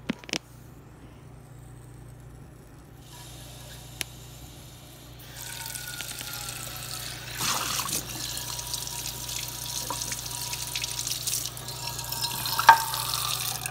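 Kitchen tap water running into a nonstick frying pan held in the sink, splashing in the pan without sizzling because the pan was not hot enough. The flow gets stronger about five seconds in, and there is a sharp knock near the end.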